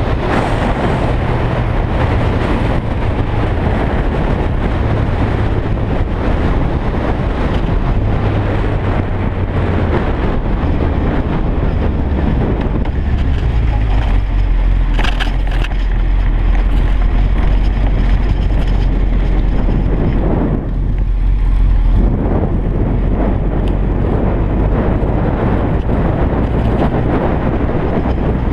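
Sportbike engine running at riding speed under heavy wind rush. The engine note drops lower about halfway through as the bike slows.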